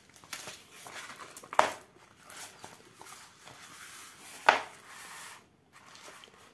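Rustling and crinkling of a rolled diamond-painting canvas being unrolled and flattened by hand, with two sharp crackles, about a second and a half in and again near four and a half seconds.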